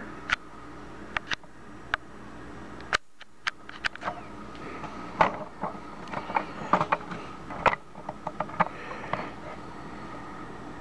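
Scattered light clicks and taps from handling a laptop and the camera, over a steady low hum. The sound drops out briefly about three seconds in.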